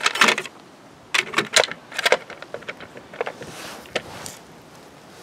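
Small hard parts clicking and clattering as they are handled, in several quick clusters of sharp knocks, with a softer rustle near the end.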